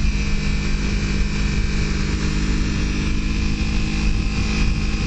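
Kawasaki Ninja 300's parallel-twin engine running at a steady pitch while cruising, under a rush of wind and road noise.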